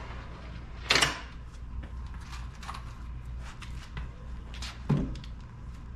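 Short knocks and clicks of a plywood bench board and its metal hinge brackets being shifted and lined up by hand, the loudest about a second in and another near the end, over a low steady hum.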